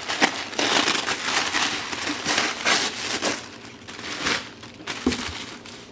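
White tissue paper rustling and crinkling as hands pull it open and fold it back from clothes packed in a box. The crinkling is busiest for the first four seconds or so, then thins out.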